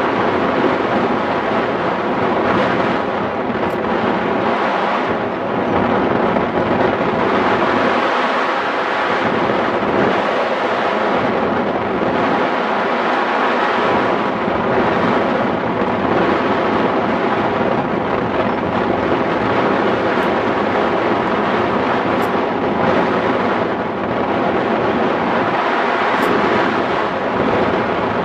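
Airflow rushing past the microphone of a camera mounted on a hang glider in flight: steady, loud wind noise.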